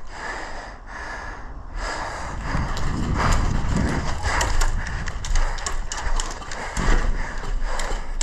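Irregular clicks and knocks in an uneven, clip-clop-like pattern over a low rumble: footsteps and gear clatter of an airsoft player moving on foot, heard on a body-worn action camera.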